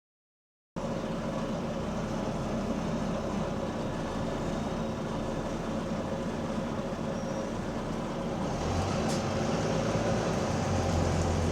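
Double-decker bus running, heard from inside the passenger cabin: a steady engine drone that starts just under a second in. About eight and a half seconds in, a deeper drone builds and it gets a little louder.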